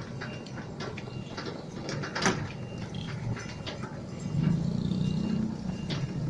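A mini excavator running, with a steady low engine drone and repeated sharp metal knocks and clanks. The engine swells louder for about a second and a half a little past the middle.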